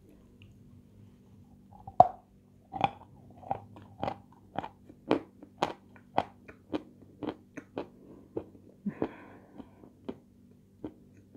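Close-up crunching as a crisp white sugary sweet is bitten and chewed: one sharp bite about two seconds in, then a steady run of crunches about two a second that grow softer near the end.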